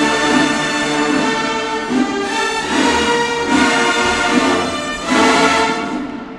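Marching band brass and woodwinds playing loud, held chords that change about once a second, ending on a final swell that dies away near the end.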